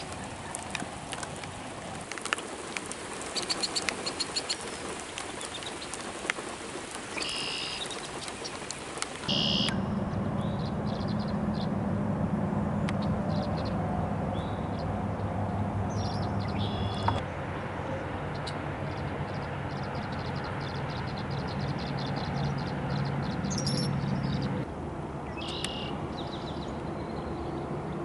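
Outdoor ambience with birds chirping and calling on and off over a steady background noise. About nine seconds in, the background changes abruptly to a louder low steady hum, and it shifts again near the end.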